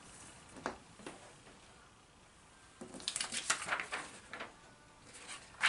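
Faint handling noises from a camera being moved over a paper worksheet: a few light taps and clicks, a cluster of them about three seconds in and a sharper click near the end.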